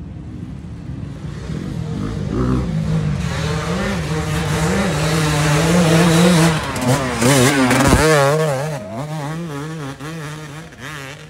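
Enduro dirt bike engines revving on a hill climb, the pitch surging up and down as the riders work the throttle. The sound grows louder as a bike passes close and is loudest around six to eight seconds in, with a brief thump near eight seconds, then fades as another engine keeps running.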